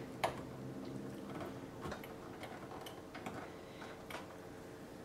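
Faint, scattered plastic clicks and taps from a SATA data cable's connector being handled and pushed onto a motherboard's SATA port, with a low steady hum underneath.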